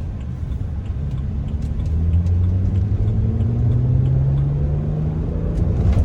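BMW 335i's N54 twin-turbo inline-six pulling under acceleration, its note climbing steadily in pitch, then breaking off near the end as the engine note drops, as at an upshift.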